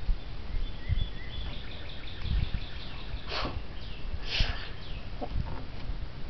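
Birds chirping and calling outdoors: a quick run of high chirps, then two louder calls a little past the middle. Wind rumbles on the microphone throughout.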